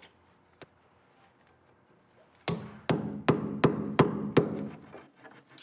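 Hammer striking a chisel wedged against a 1927 Steinway grand's pin block: six sharp blows about two and a half a second, starting about two and a half seconds in. The chisel is working loose a pin block that is glued and doweled on three sides.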